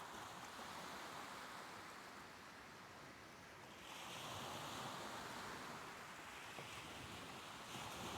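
Soft ocean waves washing in, a steady rush of surf that swells twice, about halfway through and again near the end.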